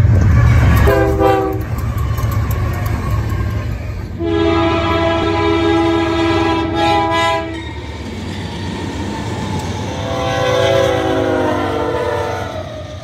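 Diesel freight locomotive horns over engine and rail rumble: a short blast about a second in, a long steady chord from about four seconds to seven and a half, and a third blast near the end whose pitch drops as the locomotive passes.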